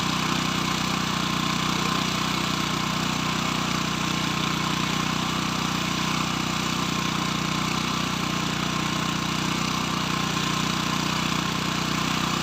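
Steady mechanical hum of a running motor, unchanging in pitch and level throughout.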